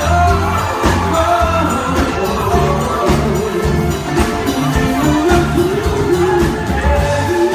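Live pop band playing, with a male singer's voice over a steady bass line.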